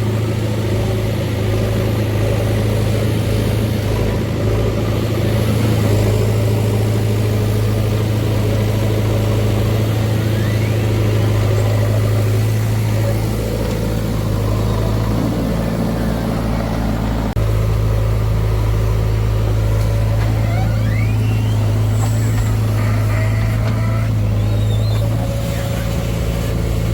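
Heavy diesel machinery engine running steadily at constant speed, a low, even hum, with a sudden step in the sound about two-thirds of the way through.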